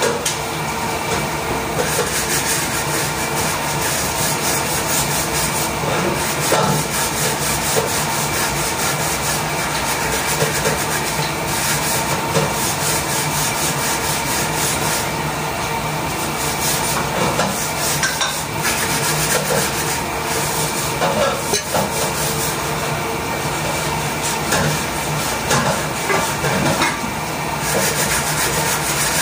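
Vegetables sizzling as they are sautéed in a pan, with a wooden spatula stirring and scraping against the pan. A steady hum runs underneath.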